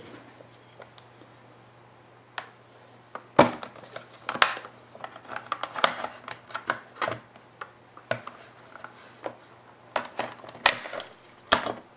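Metal pry blade levering open the plastic shell of a WD My Passport portable hard drive: scattered clicks and scrapes of plastic, with two sharper snaps about three and a half and four and a half seconds in.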